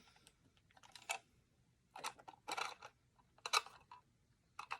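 Light clicks and small rattles of a prewar Lionel 655 tinplate boxcar being turned over in the hands, in short clusters a second or so apart.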